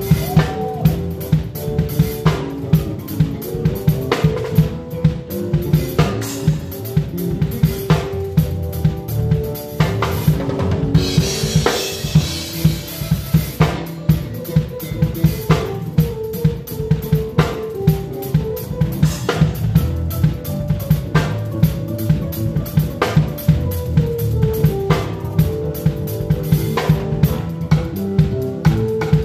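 Live band playing an upbeat gospel song, heard from right at the drum kit: regular kick, snare and rim hits lead, with held melodic notes from the other instruments underneath. A cymbal wash swells about eleven seconds in and fades out a couple of seconds later.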